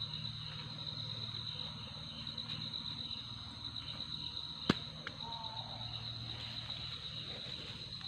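Steady high-pitched insect chorus with a faint pulse, over a low rumble, and a single sharp click a little past halfway.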